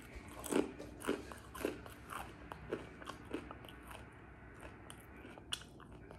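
A person biting into and chewing a piece of a One Chip Challenge tortilla chip: about six crunches, roughly two a second, the first loudest and the rest fading, stopping after about three and a half seconds.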